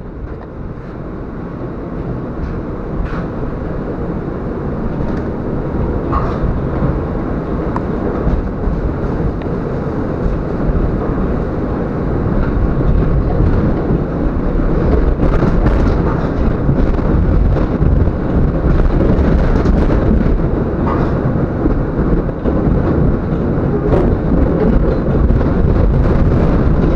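Tram running along the rails, heard from inside the cab: a steady rumble that grows louder over the first dozen seconds or so, with a few short clicks and knocks now and then.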